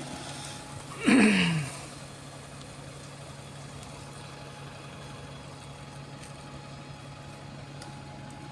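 Steady low hum of an idling motor-vehicle engine. About a second in, a short loud sound falls in pitch.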